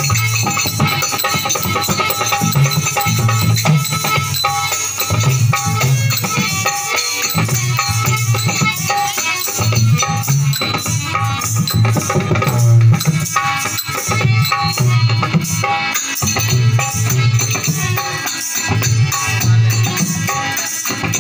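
Harmonium and dholak playing together as bhajan accompaniment: held harmonium notes over a busy, driving dholak rhythm.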